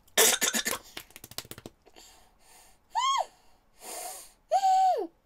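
A woman's wordless reaction to an extreme-sour Warhead candy: a sharp, hissing breath and a run of quick puffs, then two high whimpers, the second longer and sliding down at its end.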